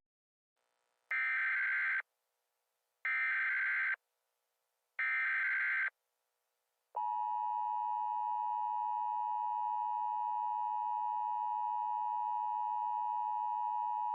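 Emergency Alert System tones: three short bursts of the SAME digital header about a second apart, then the steady two-tone EAS attention signal (853 and 960 Hz) starting about seven seconds in. The tones announce an emergency broadcast message.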